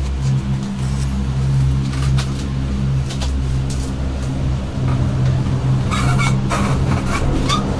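Dragondola gondola lift station machinery running with a steady low hum, heard from inside a moving cabin. Near the end, a run of clanks and rattles as the cabin moves along the station track toward the exit.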